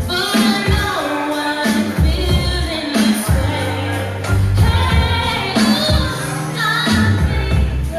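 Pop song: a woman singing over a backing track with bass and drums.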